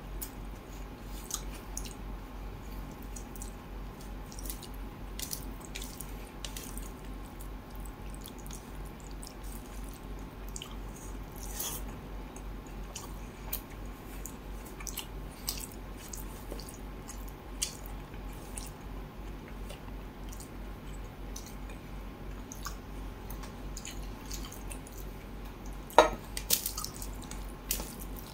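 Close-miked wet eating sounds: fingers squishing rice and fish curry on a steel plate and mouth chewing, scattered short clicks and smacks, with one louder knock near the end. A faint steady electrical hum lies underneath.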